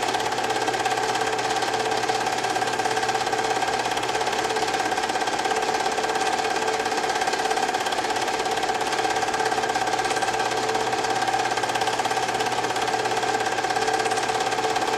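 Film projector running: a steady motor whir with a rapid, even clatter.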